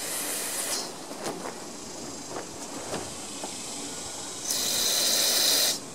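Aerosol cleaner sprayed through a thin extension straw into the passages of a Tecumseh lawn mower carburetor to clean it out. There is a short hiss that stops under a second in, then a longer, louder hiss near the end.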